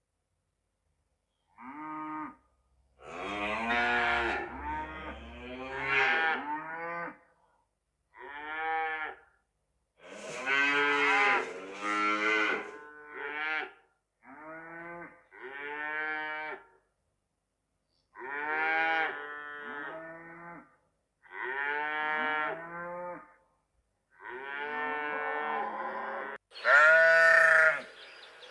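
Cattle mooing: a dozen or so separate calls, each a second or two long with a wavering pitch, separated by short silences. The last call, near the end, is the loudest.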